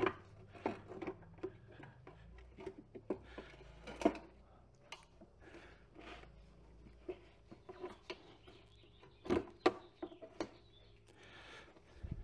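Irregular light metallic clicks and knocks from hand-fitting the rollers of a 1965 Thunderbird quarter-window regulator assembly into their track on a metal workbench. The sharpest knock comes about four seconds in, and two more come close together about three-quarters of the way through.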